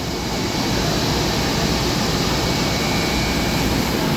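Industrial machinery running steadily, an even whooshing noise with faint high steady tones in it.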